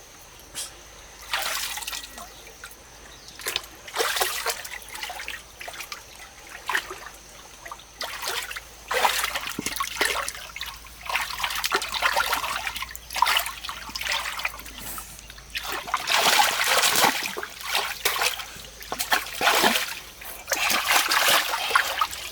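Water splashing and trickling in irregular bursts, as if stirred or poured from something lifted out of it, louder in the second half.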